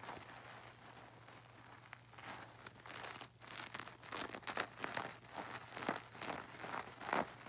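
Soap-soaked nylon mesh bath pouf squeezed and kneaded by hand in a tub of suds: wet squishing with many small crackles of foam. It is quieter for the first couple of seconds, then the squeezes come thicker and louder.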